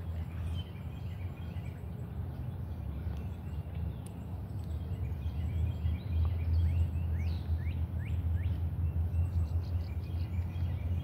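Birds chirping in short, quickly falling notes over a steady low rumble, with a sharp click near the start and another about four seconds in.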